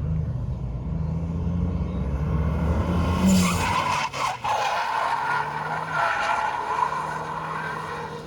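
A drift car's engine running under load, then its tyres squealing in a long slide from about three seconds in, easing off near the end.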